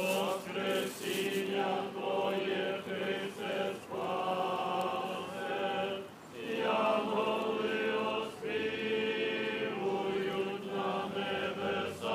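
Voices singing Orthodox Easter liturgical chant in long sustained phrases, with brief pauses between them.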